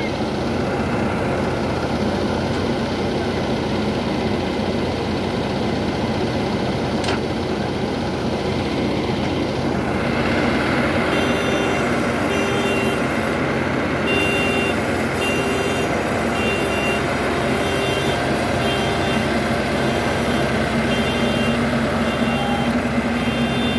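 Diesel engine of a combine harvester running steadily. About ten seconds in it gets a little louder, and a reversing alarm starts beeping, cutting in and out.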